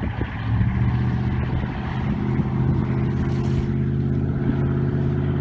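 Engine of a 1941 Chris-Craft wooden runabout running at speed, a steady low drone.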